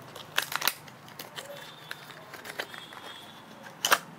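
Frog lure's packaging being opened by hand: crinkling and sharp clicks, a quick cluster about half a second in and a louder snap near the end.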